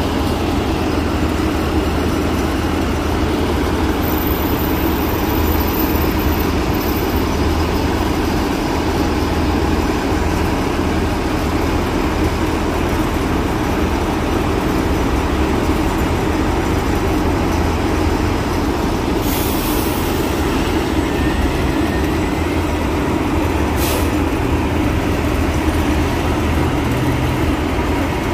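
City bus engines running at a stop amid street traffic: a steady low rumble, with a short air hiss about 19 seconds in and a briefer one near 24 seconds.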